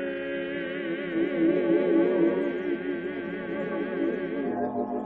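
Gospel vocal trio singing a long held note in harmony, the voices wavering with vibrato. The note thins out near the end.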